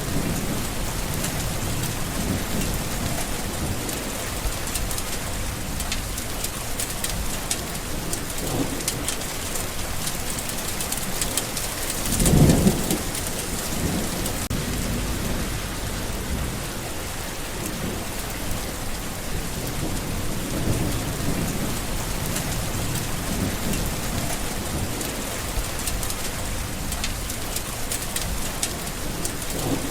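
Steady heavy rain with distant thunder rumbling softly a few times, and one louder thunder peal about twelve seconds in.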